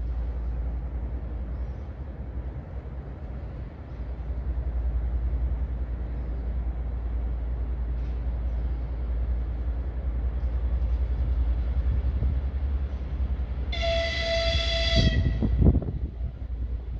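A TEP70BS diesel locomotive's whistle sounds once, a single high note held for about a second and a half near the end, over a steady low rumble; a couple of low thumps follow it.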